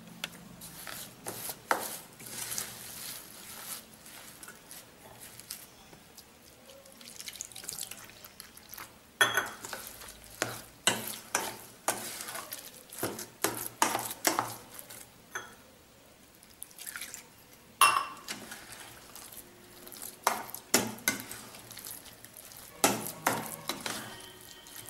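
Spatula mashing and stirring cooked rice in a stainless steel bowl: irregular scrapes and knocks against the bowl, with wet stirring sounds as milk is mixed into the rice.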